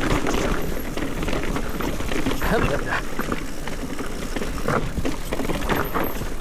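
Mountain bike descending a rough downhill trail: tyres on dirt and rock with the frame and chain rattling, over wind rumble on the camera microphone.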